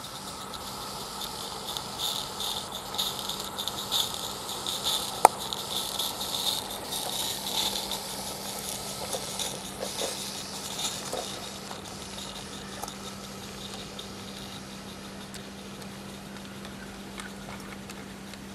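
Live-steam Roundhouse Fowler model locomotive passing with a steam hiss but no exhaust beat, since it has no chuffer. Its freight wagons rattle and click along the garden-railway track, loudest in the first half, with one sharp click about five seconds in.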